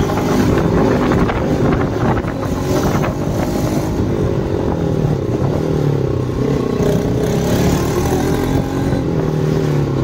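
Motorcycle engine running while riding, its note sagging about halfway through and then climbing again as the revs rise, with wind buffeting the microphone.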